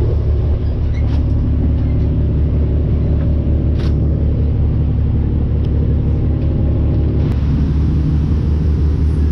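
Riverboat's engine running steadily with a deep drone, with heavy rain and wind noise over it.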